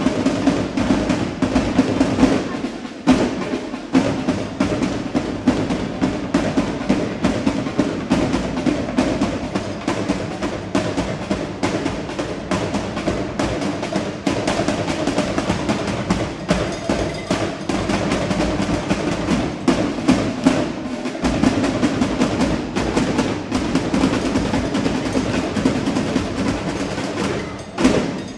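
Drumline playing a fast, dense cadence of snare and bass drum strikes.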